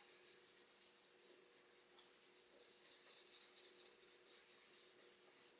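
Faint, uneven swishing and scratching of an oval makeup contour brush's bristles dabbed and swirled over a plastic stencil onto cardstock, blending ink into the paper. A faint steady hum runs underneath.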